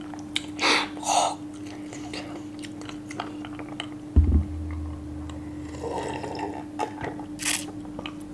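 Close-miked drinking of iced cola from a glass mug: a few sips and swallows, with a low thump about four seconds in. A faint steady hum runs underneath.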